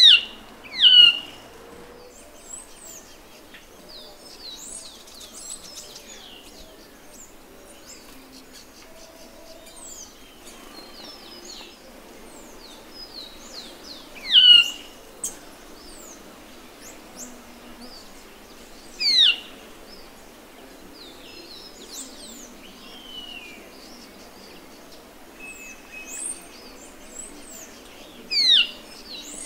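Band-tailed manakin calling: five loud, sharp notes that slide steeply downward in pitch. Two come a second apart at the start, and the rest are several seconds apart. Under them runs a faint chorus of other small forest birds.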